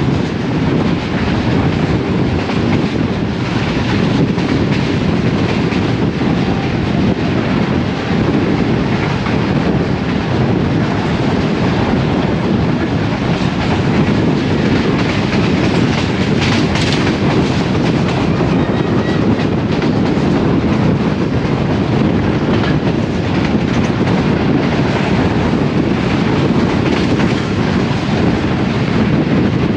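Express passenger train running through at speed, its wheels clicking over the rail joints in a steady, loud clickety-clack.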